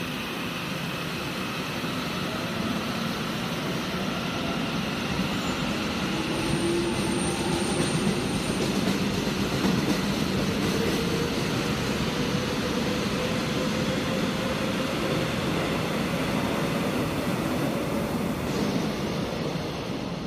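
ITX-Cheongchun electric train running in over the points, with the rumble of wheels on rails growing louder over the first half. A faint whine from the traction motors rises slowly in pitch.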